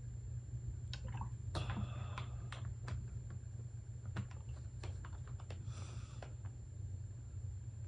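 Soft wet mouth clicks and smacking of someone chewing spicy noodles, over a low steady hum, with a short breath about six seconds in.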